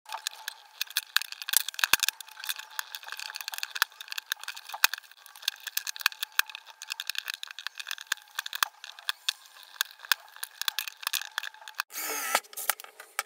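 Screwdriver tip scraping and prying at staples and a cardboard backing on a wooden board: many small clicks and scrapes, with the card tearing. Near the end a cordless drill whirs briefly.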